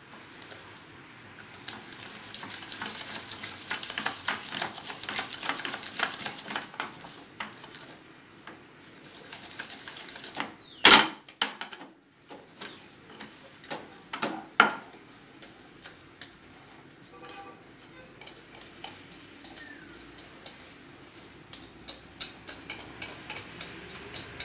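Wire whisk beating egg, sugar and pastry-cream powder in a glass dish: rapid scraping and clicking of metal against glass. A couple of loud knocks come about eleven and fifteen seconds in, and lighter scattered ticks near the end.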